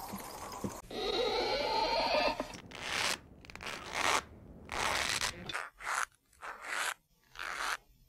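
Live sound-effect creaks and crunches made by working a small hand-held prop: a long grating creak, then a string of short separate creaks, about one or two a second. A steady rain hiss runs in the first moment before them.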